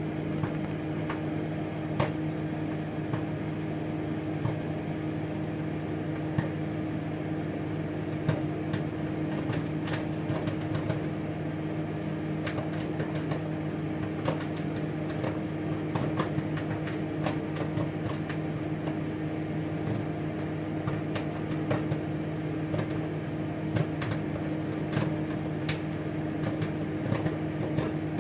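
Samsung microwave oven running with a steady hum while popcorn kernels pop inside, sharp irregular pops a few times a second.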